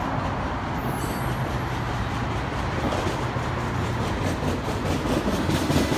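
A lone railroad tank car rolling along the track with no locomotive pulling it: a steady rumble of steel wheels on the rails.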